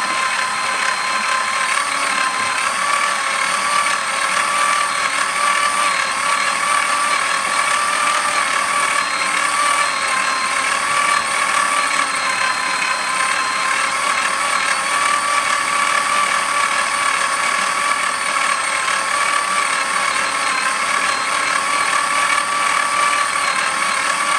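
Handheld power drill running slowly and steadily, its 3.2 mm cobalt bit cutting into a snapped head bolt in an engine block without cutting fluid. The motor's whine holds one steady pitch that wavers only slightly.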